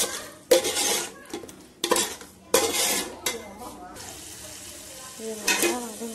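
A metal spoon stirring and scraping a thick mint-masala and yogurt paste in a metal pot, with three sharp clanks of the spoon against the pot about half a second, two, and two and a half seconds in.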